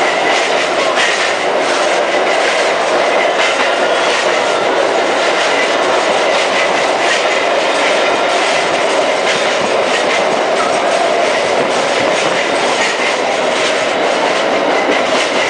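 Ride inside a 1949 Melbourne streetcar running along the track: a steady loud running noise of wheels and car body, with frequent rattling clicks.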